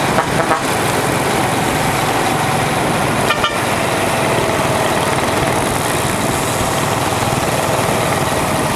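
Steady rush of wind on the microphone and road noise from a group of road bicycles riding at speed, with a brief sharp toot-like sound about three and a half seconds in.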